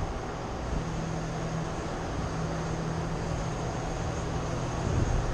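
A steady low hum over a constant hiss of background noise, with a short low thump about five seconds in.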